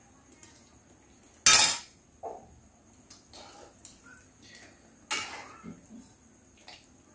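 A metal slotted spoon clanking and scraping against an aluminium kadai while noodle cakes are stirred in broth. Two sharp loud clanks, about a second and a half in and again about five seconds in, with lighter knocks and scrapes in between.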